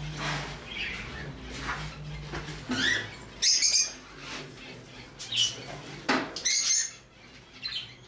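Small caged parrots chirping in short, high bursts, several calls overlapping, the loudest about a third of the way in and again near three-quarters through.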